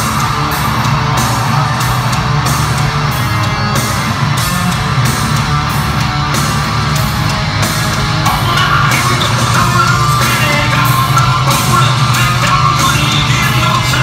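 Hard rock band playing live at full volume, with distorted guitars, drums and vocals. Crowd yelling mixes in. The music swells about eight seconds in.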